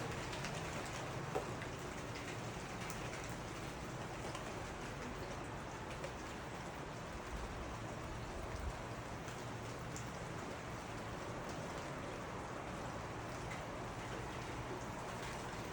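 Steady rain falling, an even hiss with a few sharp drop ticks scattered through it.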